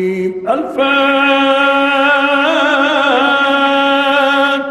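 A male Quran reciter chants 'al-Azim', the last word of the closing formula 'Sadaqa Allahu al-Azim' that ends a recitation. He draws it out as one long melodic held note, with a wavering ornament about halfway through.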